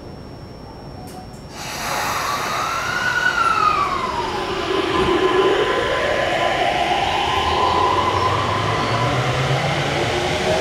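Mitsubishi IGBT-VVVF inverter and traction motors of a JR East E231-800 series electric train accelerating, the 'obake inverter' whine. Under a steady tone, the whine rises, sinks to a low dip about five seconds in, then climbs steadily again as the motors run.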